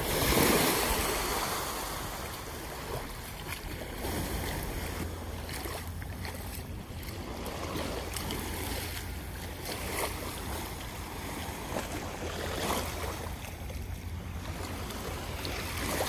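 Sea water and wind noise over a steady low rumble, with a louder swell about half a second in.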